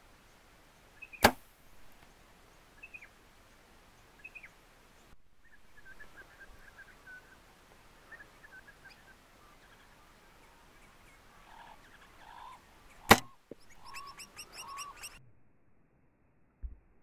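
Two arrow shots from a Hoyt Nitrum 34 compound bow, each a single sharp crack, about twelve seconds apart. Small birds chirp in between, and a rapid run of high chirps follows the second shot.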